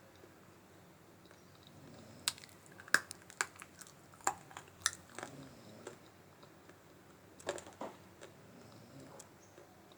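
Person biting and chewing dry multani mitti (fuller's earth clay), giving a series of sharp, crisp crunches from about two seconds in to about six seconds, then another short cluster near eight seconds.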